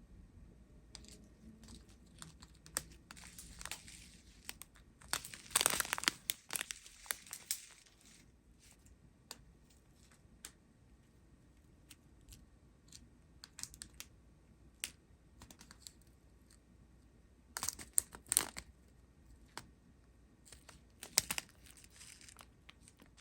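Small plastic bags of diamond-painting drills crinkling and clicking as they are handled, with three louder spells of crinkling between scattered light clicks.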